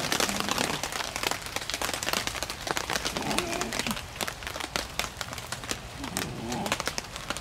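Heavy rain pattering on a tarp shelter and the leaf litter: a dense run of irregular drop ticks over a steady hiss.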